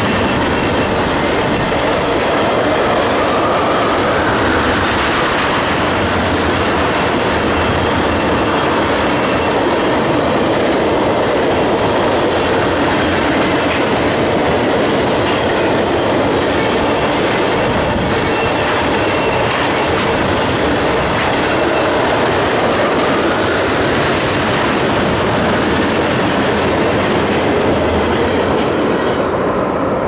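Freight train of ethanol tank cars rolling past: steel wheels running steadily on the rails with a continuous clatter, dropping off near the end as the last car goes by.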